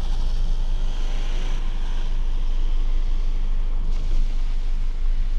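Car engine and road noise heard from inside the cabin: a steady low rumble as the car rolls slowly forward, with a hiss higher up that is strongest in the first couple of seconds.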